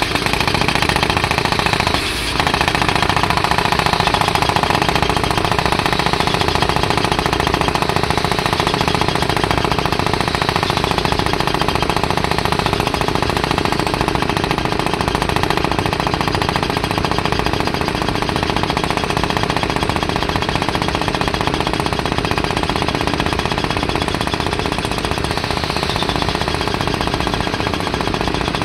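Zhengzhou Zhengyang CTQ-D100YA2 crawler rock drilling rig hammer-drilling a blast hole in rock: a loud, steady, rapid percussive hammering that dips briefly about two seconds in and otherwise runs on unbroken.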